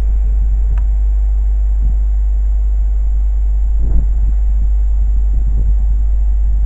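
Wind buffeting the microphone: a loud, steady low rumble with uneven gusts.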